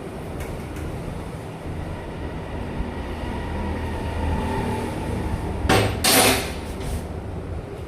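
Engine running steadily with a low rumble, and a loud, sudden rushing noise about six seconds in that lasts under a second.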